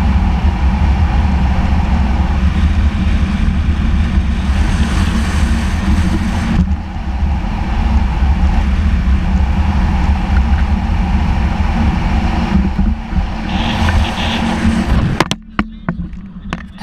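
Heavy wind buffeting the microphone, with road and engine noise from an open-top Jeep at highway speed. About fifteen seconds in the rush drops away suddenly, leaving a few short knocks.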